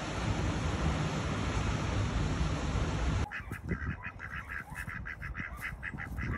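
A steady rush of wind and water noise on the microphone, cut off suddenly about three seconds in by domestic ducks calling: a quick run of short, repeated quacks, about five a second.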